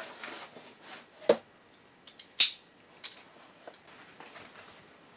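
Handling noise of a cardboard shipping box being unpacked: light rustling, then a few sharp clicks and knocks as plastic bottles are lifted out and set down, the loudest two about a second and two and a half seconds in.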